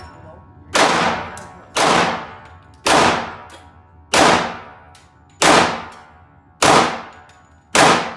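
Semi-automatic pistol fired seven times in slow, steady succession, about one shot every second and a bit, each crack ringing out in the enclosed indoor range, with a faint tick after each.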